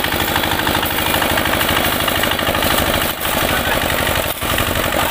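Single-cylinder diesel engine of a two-wheel walking tractor running with a rapid, even chugging beat as the tractor on cage wheels churns through wet concrete to mix it.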